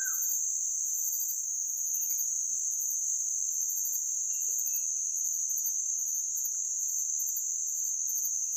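Steady high-pitched insect chorus of crickets in tropical forest, with faint rapid pulsing above the main drone. A few faint short whistles come through, one about halfway.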